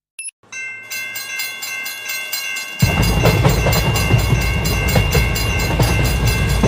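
Japanese railroad crossing warning bell ringing in a steady, evenly repeated clang. About three seconds in, the loud low rumble of a passing train joins it.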